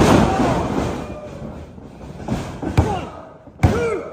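A wrestler's body slamming onto a wrestling ring's canvas mat, one loud thud with echo off the hall. Then the referee slaps the mat twice, less than a second apart, in a pinfall count, with voices calling out each count.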